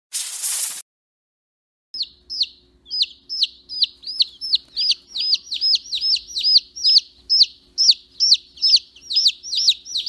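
A brood of quail chicks peeping: a steady run of high, piercing peeps at about three a second, starting about two seconds in. It is preceded by a short burst of hiss.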